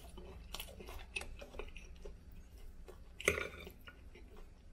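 A person chewing food close to the microphone, with scattered small clicks and a sharper knock about three seconds in.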